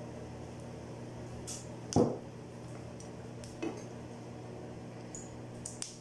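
Kitchen utensil clatter at a non-stick frying pan on a gas stove: a spoon and the pan knocking as oil is spread, with one loud knock about two seconds in, a lighter one later and a few small clinks near the end, over a steady low hum.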